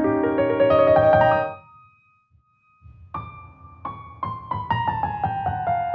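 Background piano music: a phrase dies away about a second and a half in, a short pause, then a new phrase of repeated struck notes with a slowly falling melody.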